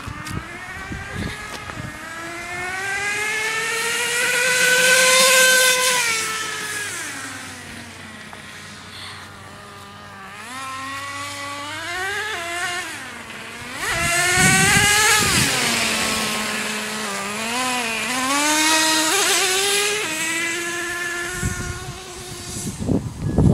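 Gas-powered RC car's small two-stroke engine revving up and easing off as it is driven, its pitch rising and falling with the throttle. It is loudest about five seconds in and again around fifteen and nineteen seconds, with a few knocks near the end.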